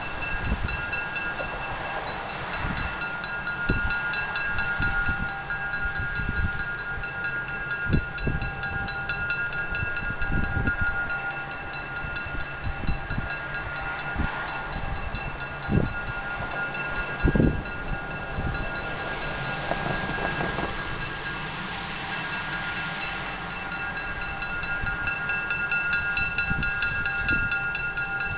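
GMD FP-9 diesel locomotive's two-stroke V16 engine running at low throttle as the locomotive moves slowly, with a steady whine over the engine note and occasional low thumps; it grows a little louder near the end.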